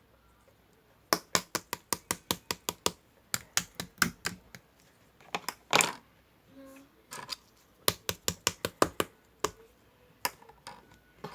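Rapid sharp clicks or taps in quick runs of several, with short pauses between runs, and one longer, louder scraping burst about halfway through.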